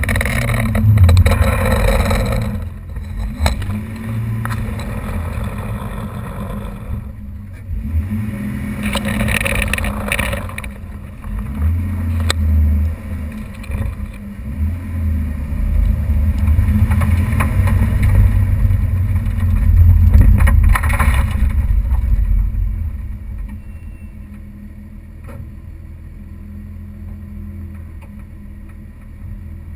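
Nissan Skyline R33 GTS-T, turbocharged straight-six, driving at low speed, heard through a camera mounted low by the front wheel: engine, tyre and wind noise rising and falling. About 23 seconds in the car pulls onto grass and stops, and the sound drops to a quieter steady engine idle.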